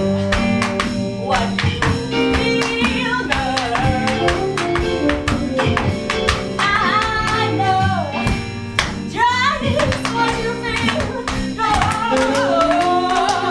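Instrumental dance music with a Latin, flamenco-like feel: plucked guitar and a steady percussive beat under a winding melody line.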